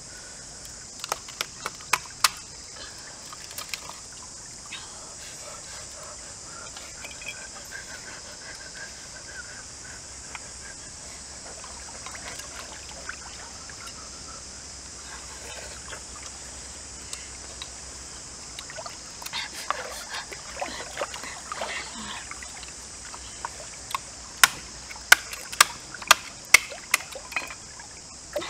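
Sharp clicks and cracks of grilled snail shells being broken and picked apart by hand. They are scattered at first, then come in a quick series of loud cracks near the end, over a steady high hiss in the background.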